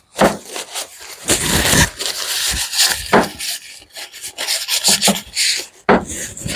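Irregular scraping and rubbing of wooden pallet slats against each other and the bench, with a few sharp knocks, as the glued slats are pressed flat and clamped.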